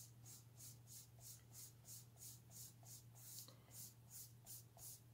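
Faint, rhythmic scrubbing of a PanPastel applicator tool rubbed back and forth on scrap paper, about three strokes a second, wiping the tool clean of pastel. A steady low hum runs underneath.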